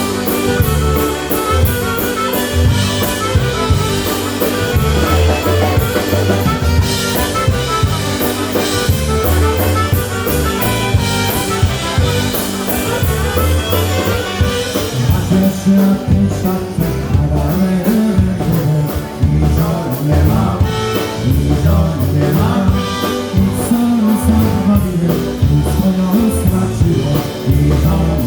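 Live polka band playing a fast oberek, with a drum kit keeping a steady beat under the melody instruments.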